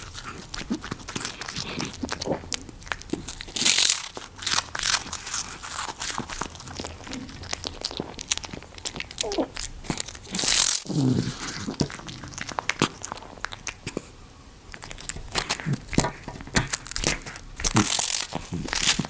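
A pet biting and chewing crunchy food, a run of irregular crisp crunches with a few louder bites about 4, 10 and 18 seconds in.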